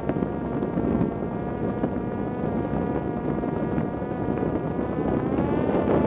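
Parrot Disco fixed-wing drone's electric motor and propeller running at a steady whine in flight, with wind rushing past. The whine rises slightly near the end.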